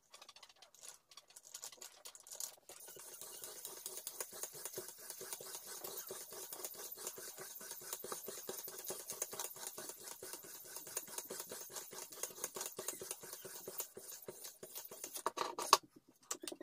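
Leather polishing block charged with oil and abrasive paste, stroked quickly and steadily back and forth over a knife's edge on a guided sharpening jig: a fast rubbing of closely spaced strokes, the final polishing stage after the sharpening stones. Near the end the strokes stop and a few sharp knocks follow as the jig is handled.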